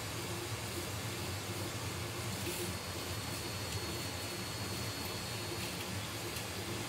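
Steady low hum and hiss of background noise, with a few faint short clicks.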